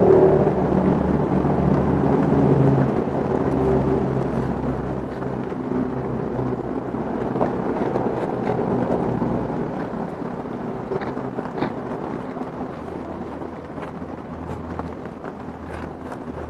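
A steady low engine drone, slowly fading, with a few faint light clicks.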